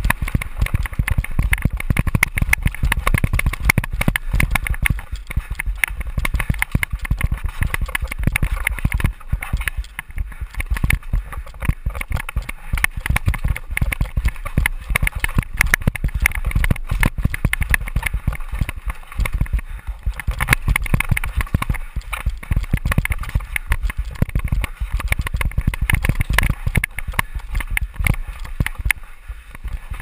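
Downhill mountain bike ridden fast over dirt and rocks, heard from a helmet-mounted camera: a constant rapid clatter and rattle of the bike over the rough trail, over a heavy low rumble.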